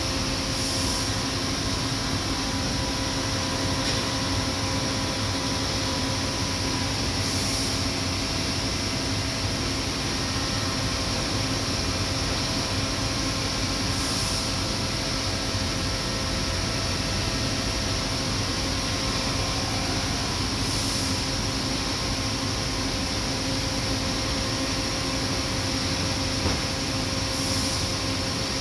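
1998 Giddings & Lewis 72-inch CNC vertical boring mill running under power: a steady machine hum with several constant tones. A short hiss repeats about every seven seconds.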